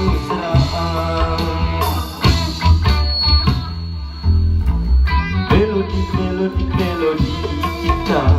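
Live amateur band playing an instrumental passage: electric guitar played through a multi-effects pedal, over a steady bass guitar line and a hand drum.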